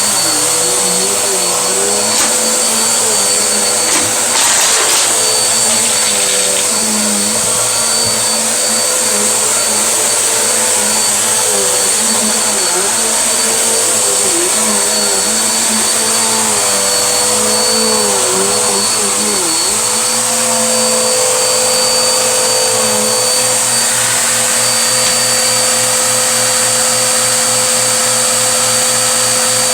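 Vacuum cleaner running steadily with a hissing rush and a whine, its lower motor hum wavering up and down in pitch. There is a short clatter about four seconds in.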